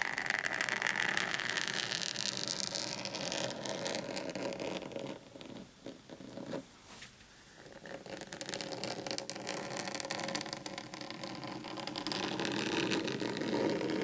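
Long fingernails scratching rapidly across a flat mat in a dense, rasping stream. It thins to a few scattered scratches about five seconds in, then picks up again around eight seconds.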